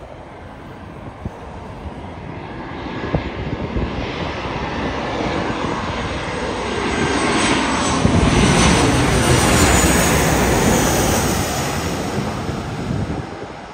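Boeing 737-800 jet airliner with CFM56-7B turbofan engines on landing approach, passing low overhead. The engine noise builds, is loudest about two thirds of the way through with a whine that falls in pitch as it goes past, then fades.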